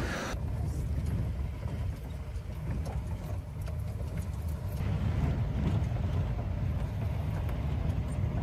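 Jeep running along a road, heard from inside the cabin: a steady low engine and road rumble.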